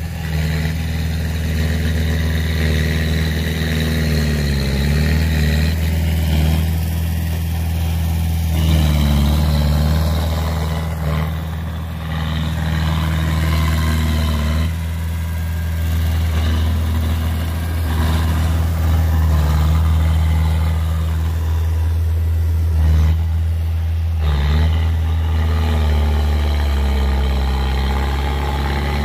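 Small crawler bulldozer's diesel engine running steadily, its pitch sagging briefly and picking up again a few times as the load on the blade changes.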